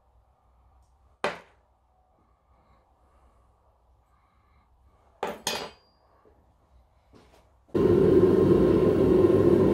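A few sharp metallic knocks as a metal spoon skims dross off a cooling zinc ingot: once about a second in and twice about five seconds in. Then, about three-quarters of the way through, the gas burner of a Devil Forge melting furnace comes in, running loud and steady.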